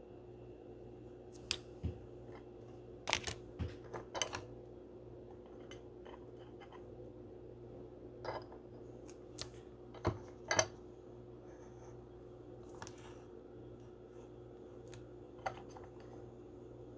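Scattered short clicks and soft rustles of trading cards and plastic card packaging being handled, over a low steady hum. The clicks come in two clusters, one a few seconds in and another near the middle, with a couple of single ones later.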